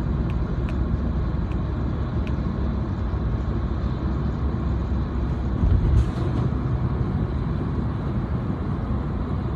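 Steady low road and engine rumble heard from inside a moving vehicle at highway speed, with a few faint ticks in the first couple of seconds and a louder bump about six seconds in.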